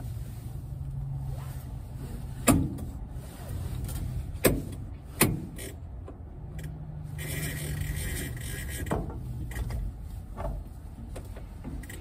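Car seat belt being worked by hand: webbing drawn out of and sliding back into its retractor reel, with three sharp clicks of the latch and reel between two and five seconds in and fainter clicks later, over a low steady hum.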